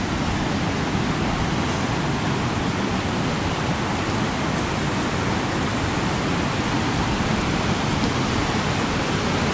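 Flood-swollen river rushing fast over its banks and through white water: a steady, unbroken noise of moving water.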